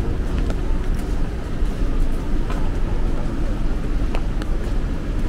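City street ambience in the rain: a steady low rumble with scattered sharp ticks, like drops hitting close by.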